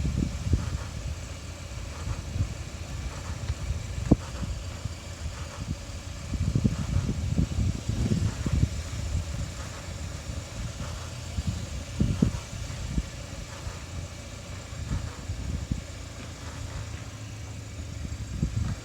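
2013 Kia Optima SXL making intermittent creaks and knocks over a steady low vehicle rumble, with a sharp click about four seconds in and denser bursts of creaking a few seconds later and again near the twelfth second.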